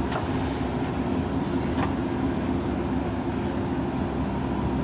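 JCB 3DX backhoe loader's diesel engine running steadily under work, with a couple of faint light clicks.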